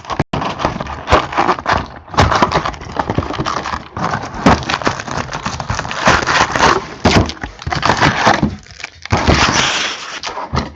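Trading-card packs being pulled out of a cardboard hobby box and handled close to the microphone: continuous crinkling and rustling of foil wrappers, with scraping and small knocks of cardboard.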